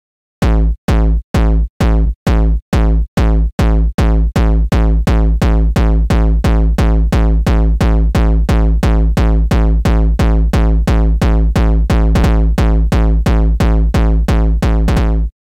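Distorted oldschool hardcore/gabber kick drum looping four-on-the-floor from an FL Studio pattern, each kick a sharp click into a booming, buzzing low tone. It plays at about two kicks a second, then speeds up to about three a second some five seconds in as the tempo goes from 130 to 176 BPM, and stops near the end.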